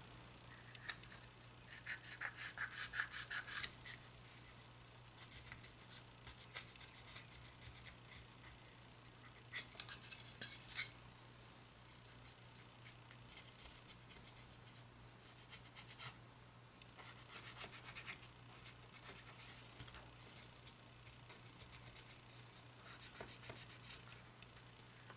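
Faint rubbing and scrubbing in several short bouts as a part of a GE 900 MHz cordless phone is wiped clean around its side.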